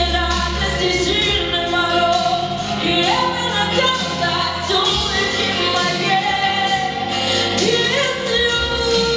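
A girl singing a song over instrumental accompaniment.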